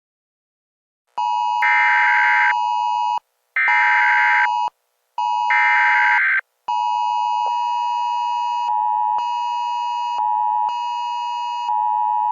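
Emergency Alert System tones: three short bursts of screechy data tones about a second apart (the SAME header), then a steady, continuous two-tone attention signal from about seven seconds in.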